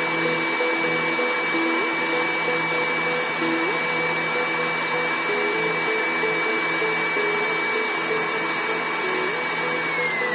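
Sanyo SM-B11 blender motor running steadily at high speed with a constant whine. Near the end it is switched off and the whine falls as the motor winds down. This is the blender working again after its thermal fuse was replaced.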